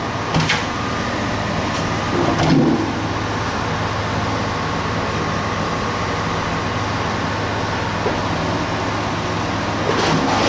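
Sandblaster blasting a metal toolbox: a steady, loud hiss of air and grit with a low hum beneath it, surging briefly louder about half a second in, at about two and a half seconds and again near the end.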